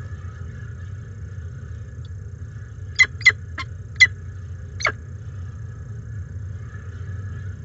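Peregrine falcon chick giving five short, sharp begging chirps in quick succession, about three to five seconds in, while being fed. A steady low hum runs underneath.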